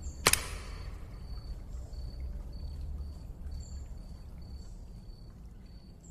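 A single sharp click just after the start, then a steady low rumble under a faint, high, short chirp that repeats evenly about three times a second.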